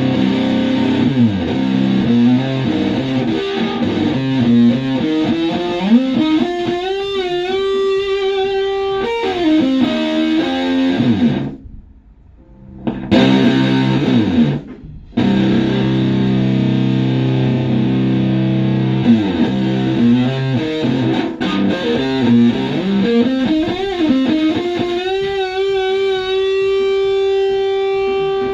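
Electric guitar (Stratocaster) through a Tone Bender MKII-style fuzz pedal and Fender Twin Reverb clone amp, playing a thick distorted riff. Notes are bent and held with vibrato twice, with a short break in the playing near the middle.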